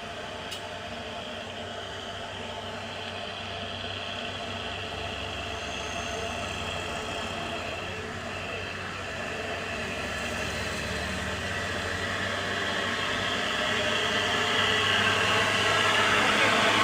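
Heavy diesel engine running steadily and getting louder, with a high hiss building over the last few seconds.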